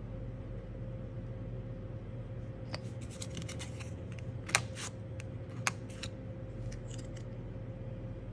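Small clicks and scrapes of a plastic scraper card working black nail polish across a metal nail-stamping plate, the sharpest click about four and a half seconds in, over a steady low hum.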